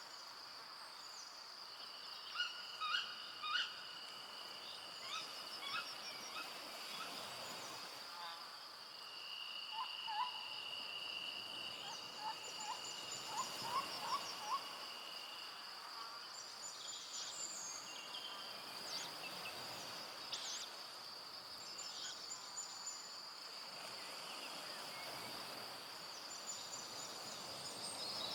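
Evening forest chorus: a steady, high-pitched insect trill runs throughout, and a second, lower trill comes in for several seconds around the middle. Scattered short bird calls and chirps sound over it, including a quick run of notes around the middle.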